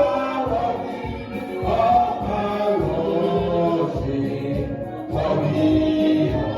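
Gospel choir singing a worship song over instrumental accompaniment with a steady beat.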